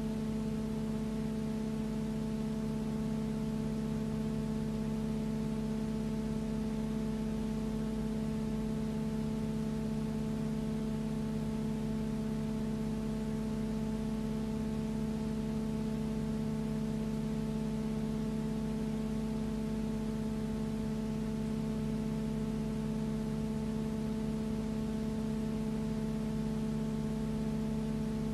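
A steady, unchanging hum of several fixed tones over an even hiss, with no sign of the aircraft passing.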